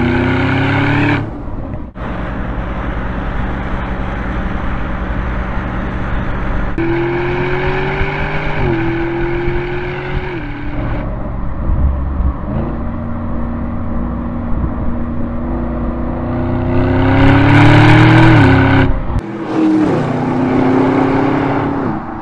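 Audi SQ7's twin-turbo V8 accelerating through the gears: the engine note climbs in pitch and drops back at each upshift, with a few abrupt cuts between passes. The loudest and highest climb comes near the end, just before a final shift.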